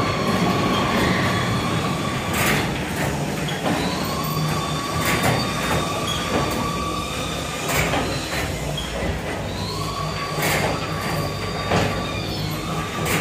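Haunted-house attraction noise: a steady rumble with long, high squealing tones that come and go, and repeated sharp bangs every second or two.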